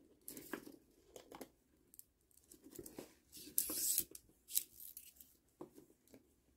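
Plastic pony beads clicking and rattling as they are handled and threaded onto a needle and string, with a longer rasping hiss a little past the middle as the string is drawn through the beads.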